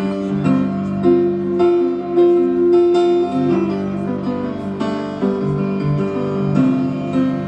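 Grand piano played solo in an unhurried instrumental passage of a slow ballad, with chords struck in a steady rhythm and no singing.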